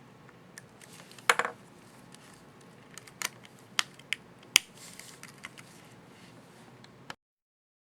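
Plastic clicks of an HP ProBook 4540s laptop keycap being fitted and pressed: a quick cluster of clicks, then several sharp single clicks and a few fainter ticks. The sound cuts off abruptly near the end.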